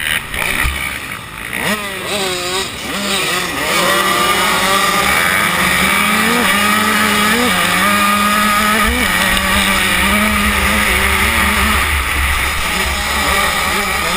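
Two-stroke KTM 85 motocross bike launching off the start line, its engine sweeping up hard about two seconds in, then held at high revs with the pitch climbing and dipping as it shifts and rides the track, amid the engines of the rest of the field.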